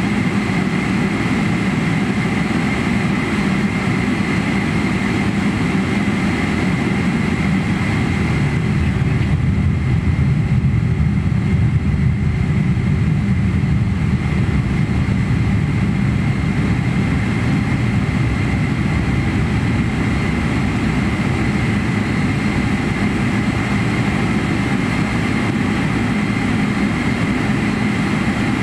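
Cabin noise of a Boeing 777-300ER taxiing, heard from a window seat over the wing: its GE90-115B engines running near idle give a steady high whine over a low rumble.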